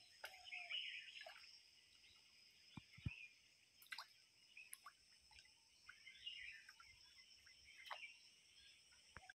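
Quiet outdoor ambience: birds chirping now and then over a steady high-pitched hum, with a few faint clicks and knocks.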